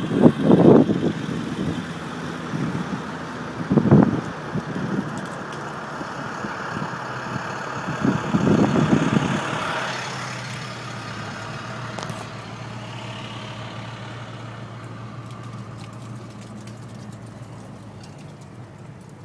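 A motor vehicle's engine running steadily, with loud low rumbles about a second in, at about four seconds and at about eight seconds; the sound grows quieter through the second half.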